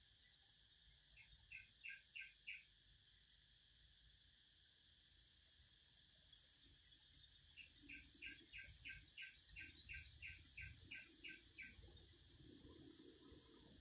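Cicadas buzzing, a high shrill drone that swells about five seconds in and then holds steady and loud. Over it a bird repeats a short note about three or four times a second in runs.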